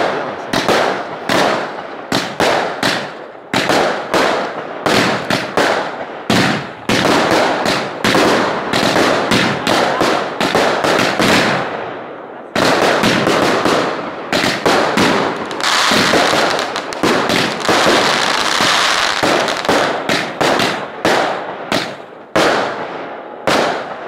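Firework finale from consumer multi-shot cakes: rapid volleys of launch and burst reports, several a second. There is a brief gap about halfway, and a stretch of hissing crackle in the second half, before the firing dies away at the very end.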